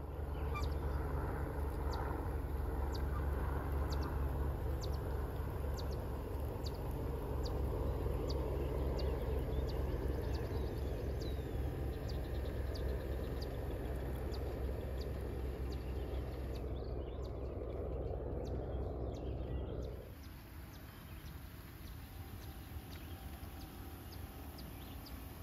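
Walk-behind boom sprayer's pump running steadily with a low hum and spray hiss, fading sharply about twenty seconds in. A bird chirps repeatedly with short, high calls throughout.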